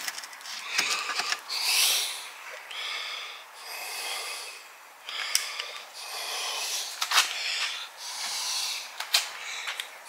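A person breathing loudly close to the microphone in slow repeated breaths. A few sharp clicks come from the metal backing plate and its bolts being handled against the door, one about five seconds in, then two more about two seconds apart.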